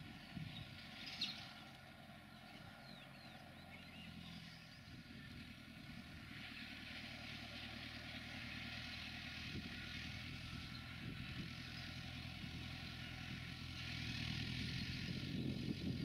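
New Holland 6010 tractor's diesel engine running steadily while it ploughs and turns, getting gradually louder as the tractor comes closer. A single sharp knock about a second in.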